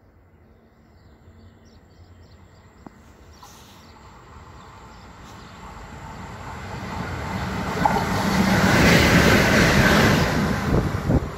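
Red electric locomotive approaching along the line and passing close by, its rush and rumble on the rails growing from faint to loudest as it goes past. A few sharp clacks of the wheels come near the end.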